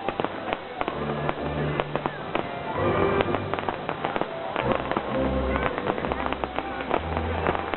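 Fireworks going off in quick, irregular pops and crackles over the show's music soundtrack, which carries sustained low notes.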